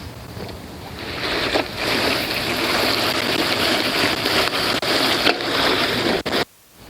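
Broadcast spreader throwing granular lawn fertilizer: a steady hissing patter of granules that builds about a second in and cuts off abruptly near the end.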